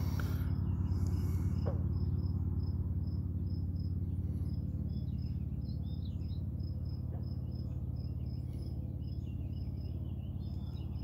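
An insect chirping in a steady rhythm of short high pulses, a few a second, with scattered bird calls, over a steady low rumble.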